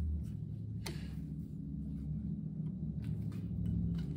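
A steady low mechanical hum, with a few light metallic clicks as a hex key works the tool-bit set screw in a line-boring bar.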